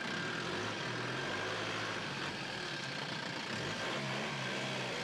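SUV engine running as the vehicle drives slowly and turns, with tyre and road noise; a steady, even sound with a low hum underneath.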